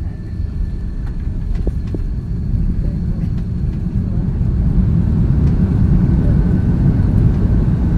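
Cabin noise of an Airbus A330-323 on its landing roll: a dense low rumble of wheels and Pratt & Whitney PW4000 engines, with a couple of faint knocks about two seconds in. The roar grows louder from about halfway through with the ground spoilers up, typical of reverse thrust building after touchdown.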